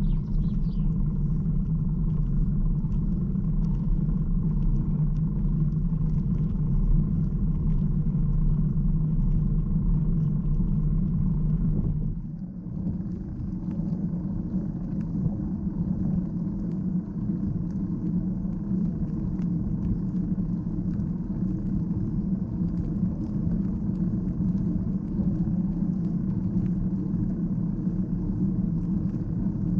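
Steady low rumble of a bicycle ride heard on an action camera: wind buffeting the microphone and tyres rolling on a paved path. It dips briefly about twelve seconds in, then carries on a little softer.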